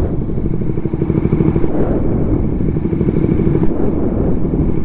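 BMW S1000RR's inline-four engine running steadily, a dense rapid firing pulse with no revving.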